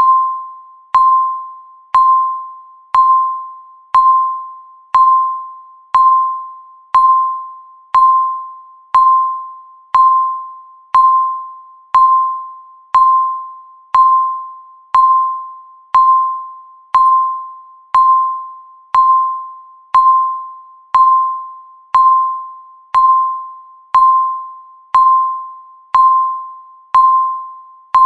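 Countdown timer beep: a single mid-pitched electronic tone sounding once every second, each beep starting sharply and fading away before the next.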